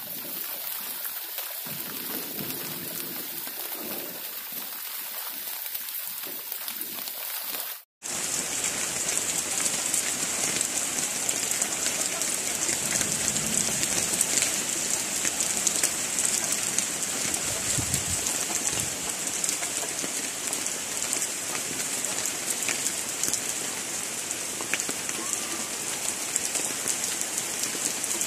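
Heavy stormy rain pouring down on fields and vegetation, a steady dense hiss. It drops out for an instant about eight seconds in and comes back louder.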